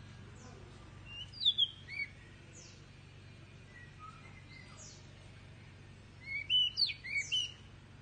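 Pied bushchat (decu) singing two short phrases of quick, high chirping notes, about a second in and again about six seconds in, from a young bird still learning its song. A low steady hum lies underneath.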